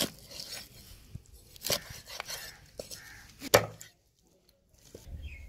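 Large curved knife chopping through a fish into steaks and striking a wooden log chopping block: a few sharp chops, the loudest about three and a half seconds in. The sound breaks off about four seconds in.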